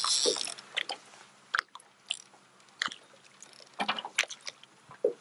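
Scattered clicks, taps and rustles of hands handling a fishing rod and reel on a small boat, starting with a brief hiss and bunching into a small cluster of clicks near the end.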